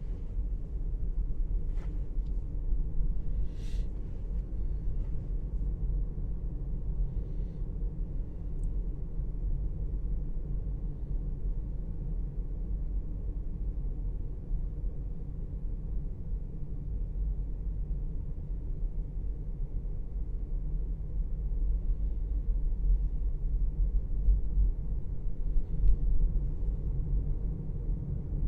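Steady low rumble of a car's engine and tyres while driving slowly on a town street, with a few faint clicks in the first few seconds.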